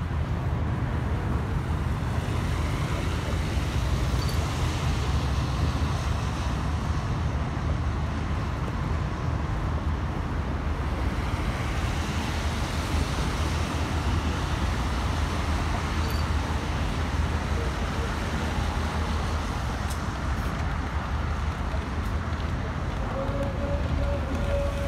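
Steady outdoor city ambience: a continuous low rumble of road traffic, with a short faint tone near the end.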